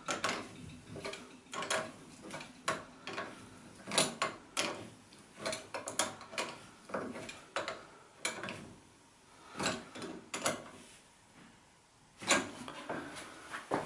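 Irregular metallic clicks and knocks of a wrench working the cartridge retaining nut on a thermostatic shower mixer valve as it is tightened, a few a second, with a short pause near the end.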